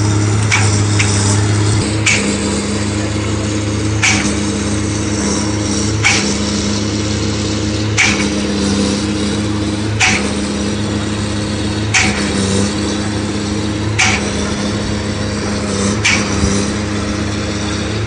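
Trailer concrete pump pumping concrete up the pipeline: a steady engine drone with a sharp knock about every two seconds as the pump changes stroke.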